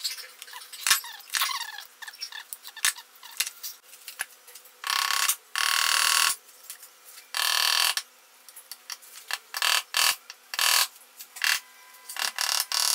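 Small metal clicks and taps, then two longer harsh scraping sounds, then several short sharp taps, as the crimped end cap of a cordless drill's small DC motor, held in a vise, is worked loose with a screwdriver and wooden mallet.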